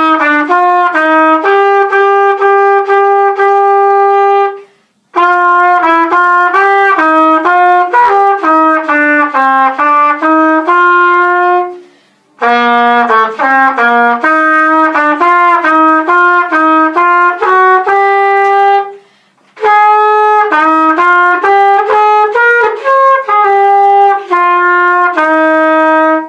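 Solo trumpet playing a melody of separate notes in four phrases, with short silent breaks between them about five, twelve and nineteen seconds in.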